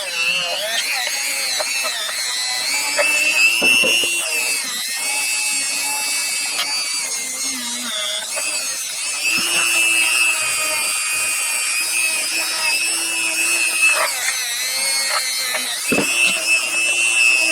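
Dremel rotary tool running against steel linesman's pliers, cleaning off rust and pitting. Its high whine rises and dips in pitch as the load changes, with a brief break about three and a half seconds in and another near the end.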